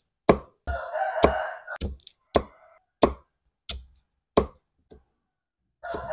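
Kitchen knife chopping galangal on a wooden chopping block, about ten sharp strokes at a steady, unhurried pace. A rooster crows in the background about a second in.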